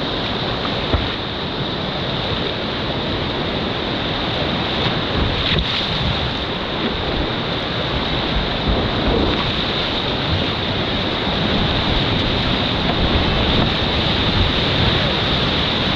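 Whitewater river rapids rushing steadily, heard close up from a kayak, with a brief knock about a second in.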